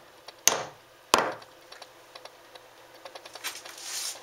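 Two sharp knocks on wood, about two-thirds of a second apart, then faint scattered scratching and rubbing that grows louder near the end.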